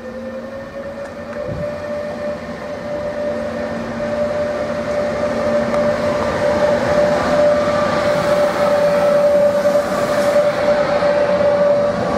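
An electric locomotive hauling passenger coaches approaches and passes close by. A steady whine rises slightly at first and then holds one note, over wheel-on-rail rumble that grows louder as the locomotive and then the coaches go past.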